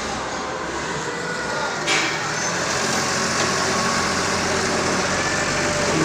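TCM diesel forklift engine running steadily, growing louder as it draws close. A single sharp knock sounds about two seconds in.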